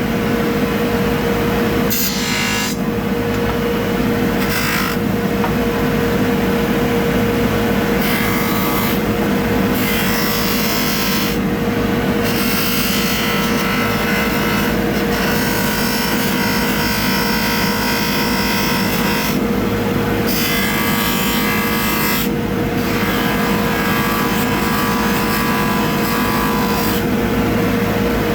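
Electric polishing buffer running steadily, with a rubbing hiss that swells and fades every few seconds as brass door hardware is pressed against the spinning wheel.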